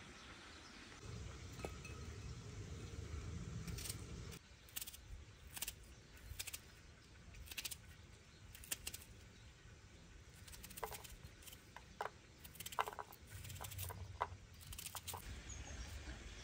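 A kitchen knife cutting into a bulb of garlic: a scatter of small, sharp crackles and clicks from the dry skin, a few at a time, over quiet outdoor background. A low rumble runs through the first few seconds.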